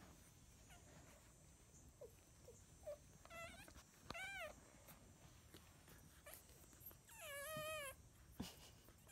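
Newborn Labrador puppies squeaking and whimpering while nursing: two short squeaks about three and four seconds in, then a longer wavering whimper near the end. The rest is quiet.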